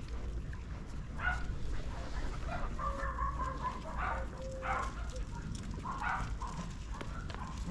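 Short animal calls, several brief pitched ones between about one and six seconds in, over a steady low rumble.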